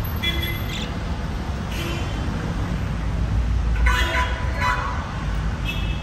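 Budgies in a cage giving short high chirps, four brief bouts with the loudest cluster around four seconds in, over a steady low background rumble.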